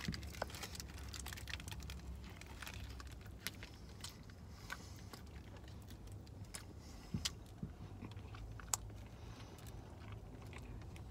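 Faint biting and chewing of a fried chicken and glazed donut sandwich, with scattered small clicks over a low steady hum.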